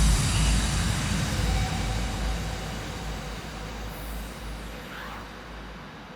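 Electronic dance music ending in a rushing noise wash with a low rumble that fades away steadily over several seconds.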